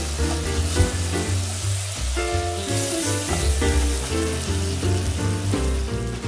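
Chicken sizzling as it fries in a pan, a steady hiss that stops at the end, over background music with a bass line.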